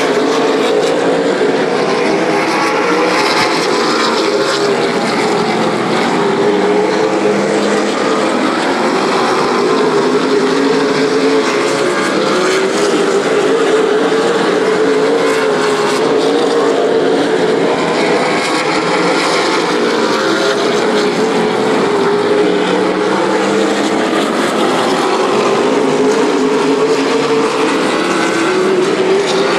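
Field of late model stock cars racing on a short oval, their V8 engines making a loud, steady drone whose pitch rises and falls as they go around.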